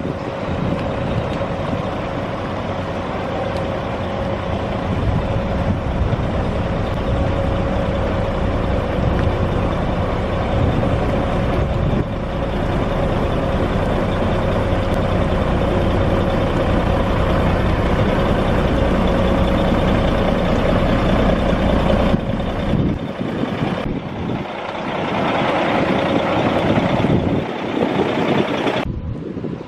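Industrial woodworking machinery running steadily with a constant hum, the sound breaking off abruptly a few times.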